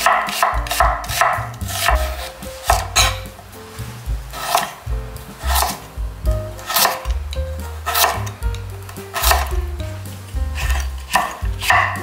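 Kitchen knife slicing onion and then carrot on a wooden cutting board, each cut ending in a knock on the wood. The cuts come in a quick run of about three or four a second at the start and again near the end, with slower single cuts between. Background music with a low bass line plays throughout.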